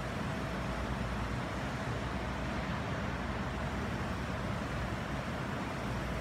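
Steady low rumble and hiss of background noise, with a faint steady hum.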